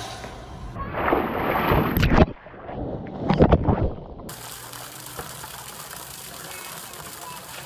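Water splashing and churning as a large animal plunges into a pool, with loud surges of splash in the first few seconds, the strongest about three and a half seconds in. After that, a quieter, steady wash of water and outdoor noise.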